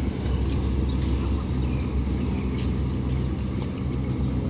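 Diesel train idling at the station platform: a steady low engine rumble.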